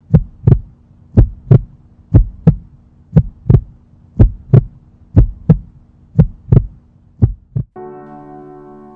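Heartbeat sound effect: eight loud double thumps, lub-dub, about one a second over a low steady hum. Near the end the beats stop and a held musical chord begins.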